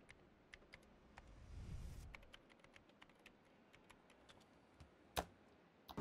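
Faint typing on a laptop keyboard: light, irregular keystroke clicks, with one louder knock about five seconds in.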